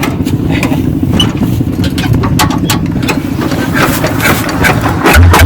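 Kubota DC-70G rice combine harvester's diesel engine running steadily under load, with frequent short mechanical knocks and rattles from the machine.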